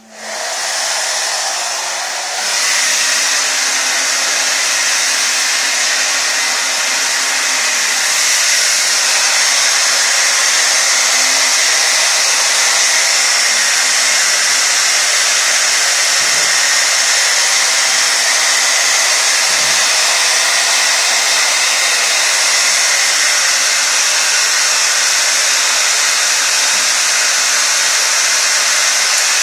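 Handheld hair dryer blowing on a Yorkshire Terrier's coat: it starts at the very beginning, steps up louder a couple of seconds in, then runs as a steady loud rush of air.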